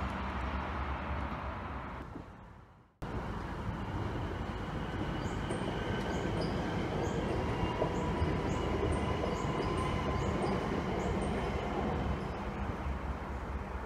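Francilien (Z50000) electric multiple unit passing over a level crossing: the rumble of one train fades away, then after a cut another runs steadily across the crossing. Regular short high chirps sound about twice a second through the middle.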